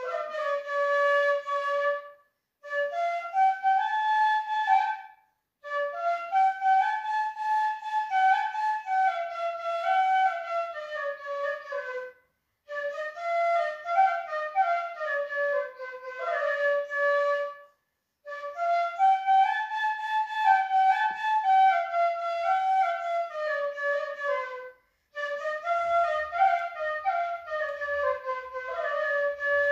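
Background music: a slow solo melody played in phrases of several seconds, each followed by a brief pause.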